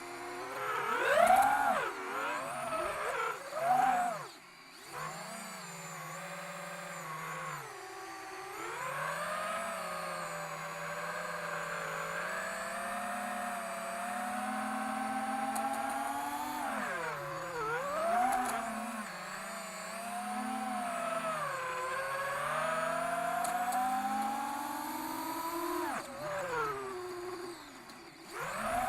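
Brushless FPV drone motor whining as the throttle is worked, suspected of being faulty. It gives a few quick blips of rising and falling pitch, then runs longer with the pitch slowly climbing and dipping, and winds down near the end.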